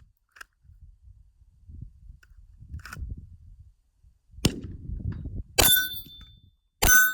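Glock 34 9mm pistol firing three shots about a second apart, starting about four and a half seconds in, each with a short ringing tail.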